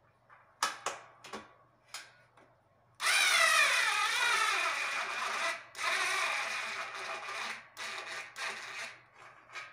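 Small cordless screwdriver driving a screw into a metal desk frame. The motor starts about three seconds in with a whir whose pitch wavers under the load. It runs in two long spells, then a few short bursts near the end, after a few short clicks at the start.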